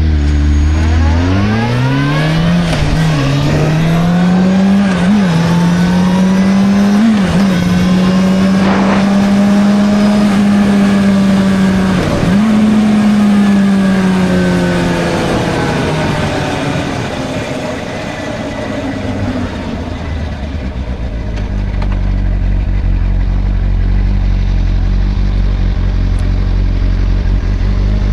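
Suzuki GSR 600's inline-four engine pulling away from idle and accelerating, its pitch rising with several quick gear changes, holding a steady speed, then slowing back down to idle in the last third, with wind noise while riding.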